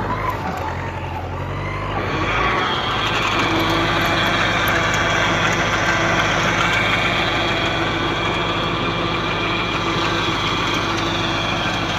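MTZ-80L tractor's four-cylinder diesel engine running steadily under load while it drives a BTZ 1.8 rotary tiller through the soil.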